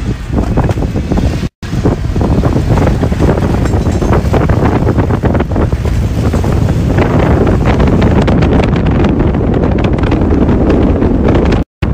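Strong storm wind from a desert tornado buffeting a phone microphone: a loud, steady rush of noise, heaviest in the low end. It drops out for an instant twice, about a second and a half in and near the end.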